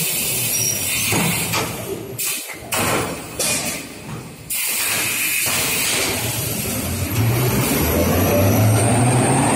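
A two-ply embossing and perforating toilet-paper rewinding machine running, with a steady rushing noise of rollers and paper web as it winds a log. The noise drops away briefly a few times between about two and four and a half seconds in, then comes back fuller, with a low hum joining in later.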